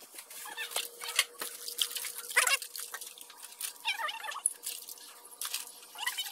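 Pandan leaves being rinsed and rubbed by hand in a metal basin of water: splashing and dripping, with many small clicks. Short animal calls can be heard three times in the background.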